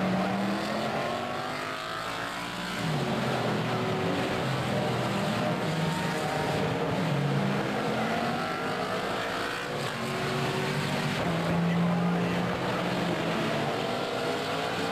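Vintage race cars' V8 engines running hard as several cars go through a corner one after another. The engine notes rise again and again as each car accelerates away.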